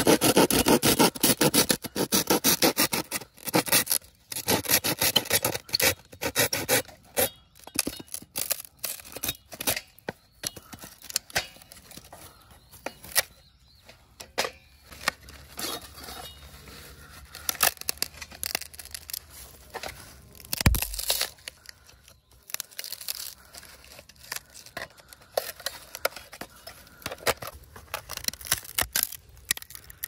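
Hand saw cutting through a bamboo pole: fast back-and-forth scraping strokes for the first several seconds, then slower, intermittent strokes. A single low thump comes about twenty seconds in.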